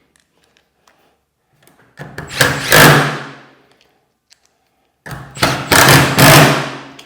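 Cordless Milwaukee M12 impact wrench driving garage door hinge screws home in two short runs of about one and a half to two seconds each, the second starting about five seconds in.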